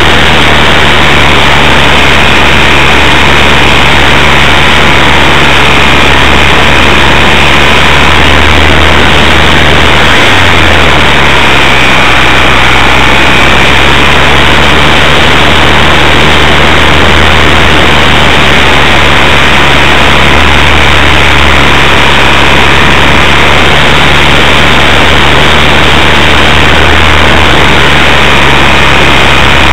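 Small RC airplane's electric motor and propeller running steadily in flight, heard from a camera on board as a loud, distorted rush of prop wash and wind with a faint steady whine. Its low hum drops briefly about ten seconds in, then steadies again.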